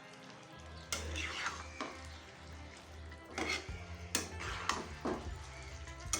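Spatula stirring the pumpkin and greens in a kadai, with several irregular scrapes and sharp clinks against the pan over a faint sizzle.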